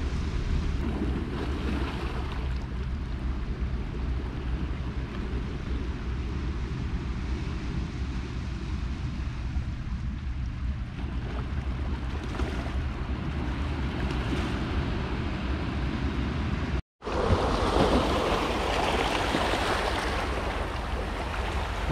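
Sea waves washing on a rocky shore, with wind buffeting the microphone. The sound cuts out briefly about 17 seconds in and then comes back louder.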